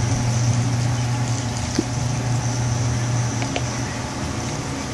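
A steady low hum over even background noise that fades out about four seconds in, with a couple of faint small clicks.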